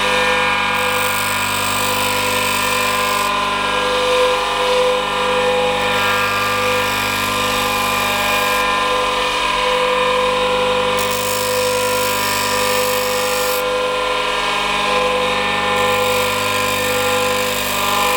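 Elko B150 electric saw-chain grinder running steadily, its grinding wheel taking down the chain's depth gauges (rakers). Under the constant motor whine, a high grinding hiss comes and goes every few seconds as the wheel touches each gauge.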